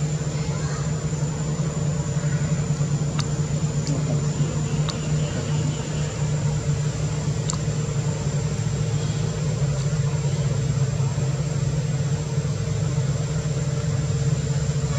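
A steady low motor hum with a thin high whine above it, unchanging throughout, and a few faint clicks.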